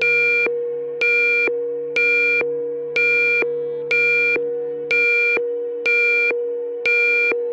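Emergency-alert alarm tone: a harsh, buzzy electronic beep repeating a little faster than once a second over a steady held tone, each beep starting sharply and fading slightly. A lower hum beneath it drops out about five seconds in.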